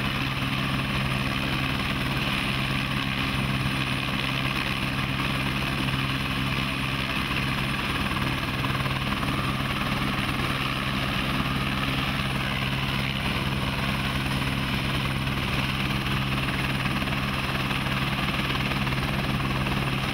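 Helicopter in level flight: a steady drone of rotor and turbine with a constant low hum, unchanging throughout.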